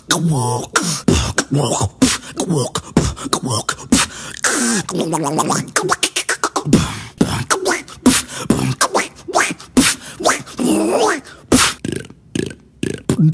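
Beatboxer making vocal sound effects with the mouth: fast sharp clicks and pops mixed with gliding, wavering voiced tones that rise and fall, with a short lull near the end.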